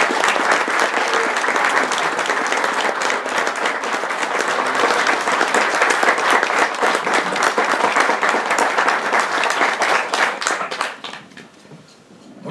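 Audience applauding: dense, sustained clapping from a roomful of people that thins out and dies away near the end.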